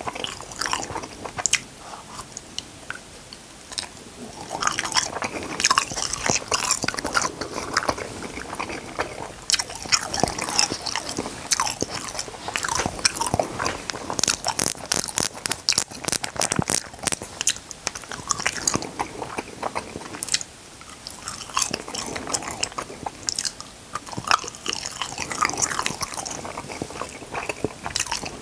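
Close-miked eating: steady biting and chewing with many sharp crunchy clicks and wet mouth sounds, busiest around the middle and briefly quieter about two-thirds of the way through.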